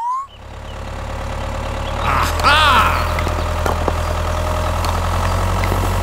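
Tractor engine running steadily with a deep, even rumble. About two and a half seconds in there is a short wavering vocal sound.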